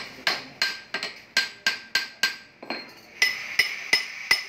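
Repeated metal-on-metal hammer strikes on a steel bearing puller gripping an alternator's bearing, about three a second, each blow leaving a short ring.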